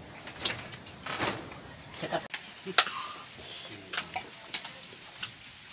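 Light clinks and taps of plates and utensils as people eat, a handful of short sharp clicks at uneven intervals.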